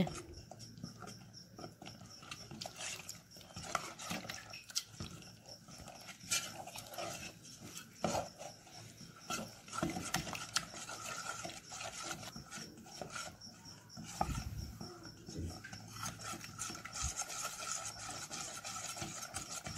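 A spoon stirring a thick batter of rice flour, wheat flour and hot sugar water in a steel bowl: faint, irregular scraping with scattered light knocks of the spoon against the bowl.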